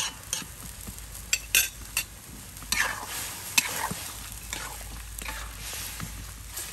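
Metal ladle scraping and knocking against a wok in irregular strokes as frog pieces are stir-fried, with the food sizzling underneath.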